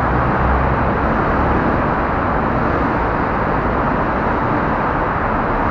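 Steady riding noise from a Yuki Jumbo 150cc scooter moving in traffic: engine, tyre and wind noise blended into an even rush, with surrounding traffic, no distinct events.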